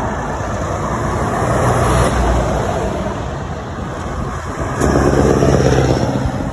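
Articulated lorries' diesel engines running as the lorries drive past at close range, with tyre noise on a wet road. Near the end a louder, steady low engine note comes in abruptly as a tractor unit pulling a bulk tanker trailer goes right by.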